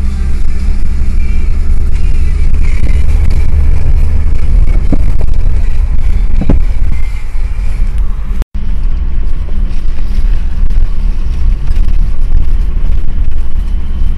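Fiat Panda 4x4 driving slowly on a snowy, rutted track, heard from inside the cabin: a steady engine hum over a heavy low rumble of tyres and road. The sound cuts out for an instant just after halfway.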